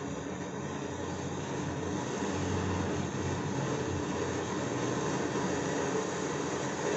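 General Master pressure kerosene stove burning used cooking oil: a steady rushing hiss of the fuel jet and flame with a low hum under it, getting a little louder about two seconds in. The burner is still preheating, its flame yellow around the burner cup rather than blue.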